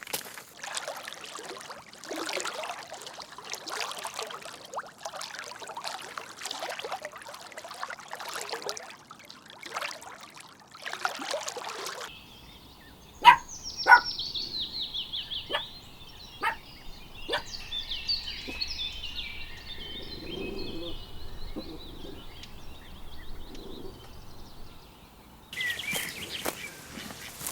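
Repeated noisy scuffing and rustling for about twelve seconds, then high bird chirps in quick runs that fall in pitch, with a few sharp clicks among them; another burst of rustling noise starts near the end.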